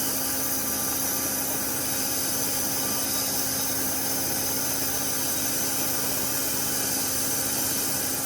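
Metal lathe running steadily while turning steel, the tool peeling off long stringy chips. A steady hum with a hiss above it.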